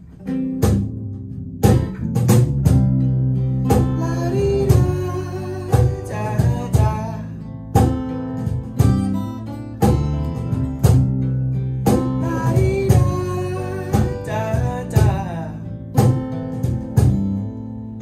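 Acoustic band playing a surf-tinged dance-rock song: two acoustic guitars strumming chords over an electric bass line, with a cajón keeping a steady beat.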